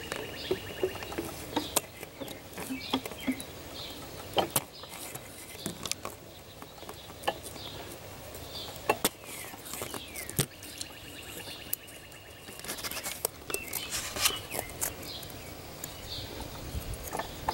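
Scattered light clicks and taps at irregular intervals, with faint chirps in the background.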